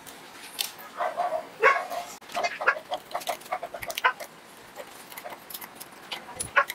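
A dog barks several times in the first two seconds. Metal tools click and scrape on the shaft end and seal housing of a small electric water pump being taken apart.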